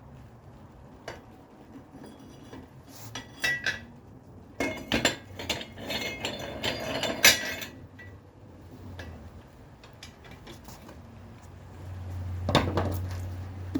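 Metal tools clinking and knocking against a manual tire changer as a tire is handled for mounting: a cluster of clatter in the middle and a single knock near the end, with a low hum late on.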